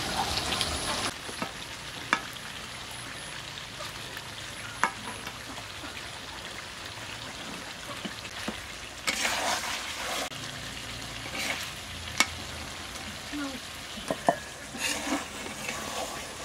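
Spiced chicken pieces sizzling as they fry dry in an iron karahi, before any water is added. A few sharp metal clinks of a spoon on metal, with louder stirring and scraping about nine seconds in and again near the end.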